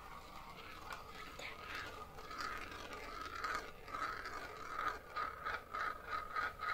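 Glass marbles rolling around the plastic funnel bowl of a marble run: a steady, faint rolling whir with small clicks and rattles that come more often in the second half.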